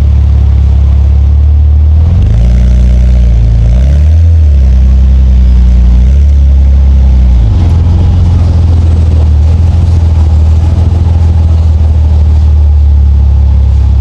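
Nissan Skyline R34 GT-T's turbocharged straight-six engine driving: a steady low drone, with the revs rising and dropping a few times between about two and seven seconds in, then settling back to an even low drone.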